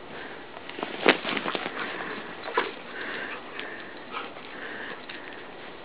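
A dog sniffing close to the microphone, a quick run of short sniffs about a second in and another near the middle.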